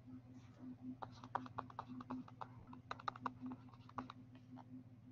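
Stylus tapping and scratching on a tablet as a word is handwritten: a run of faint, irregular clicks starting about a second in, over a steady low hum.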